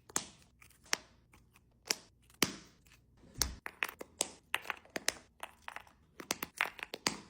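Plastic Easter eggs being filled with candy and toys and snapped shut: a quick, irregular run of sharp plastic clicks with some crinkling of candy wrappers.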